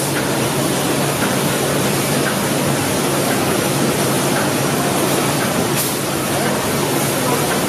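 Automatic wire mesh welding machine running: a steady mechanical din with a steady low hum underneath and occasional faint clicks.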